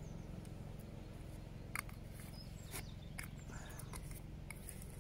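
Quiet outdoor background with a steady low rumble and a few faint, sharp clicks of small hand-handling noises as trout paste and a hook are worked in the fingers.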